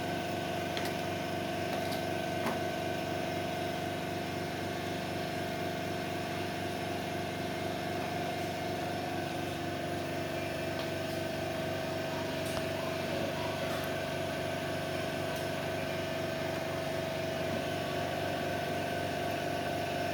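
Automatic PCB soldering machine running steadily through a soldering cycle: a constant motor hum with a steady whine that dips slightly in pitch about halfway, with a few faint ticks.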